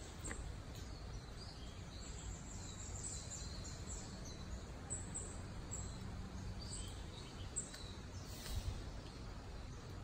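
Outdoor woodland ambience: a steady low background rumble with scattered short, high bird chirps.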